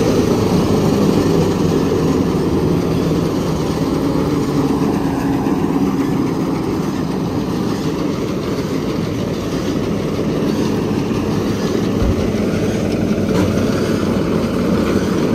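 Tractor engine running, driving a PTO-powered straw reaper; a loud, steady mechanical din.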